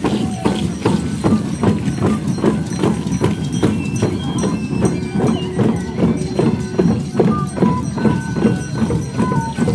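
Several double-headed hand drums beaten together in a steady processional beat, about three strokes a second, with a thin melody line held above them.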